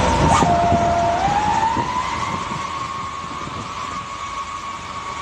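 A steady, siren-like high tone that dips lower in pitch for about a second and climbs back, over a low vehicle rumble. A brief knock comes about half a second in, and the whole gradually fades down.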